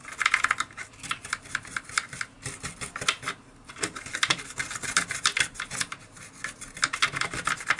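Small bristle brush scrubbing old grease, wet with isopropyl alcohol, out of a plastic RC car chassis part: quick scratchy strokes, with a short pause a little past three seconds in.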